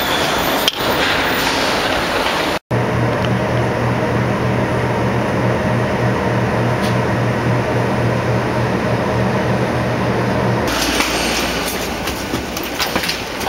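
Steady droning background noise with a low hum, cut off briefly by a short drop-out a few seconds in. Near the end it turns busier, with light clicks and knocks from a wheeled carry-on bag being rolled down an aircraft aisle.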